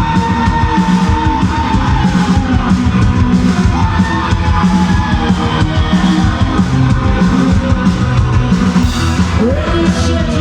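A heavy rock band playing live and loud: pounding drums, guitars and yelled vocals.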